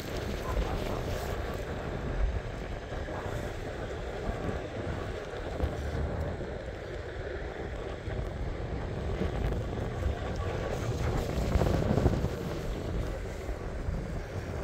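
Steady rumble of wheels rolling over rough asphalt, with wind buffeting the microphone.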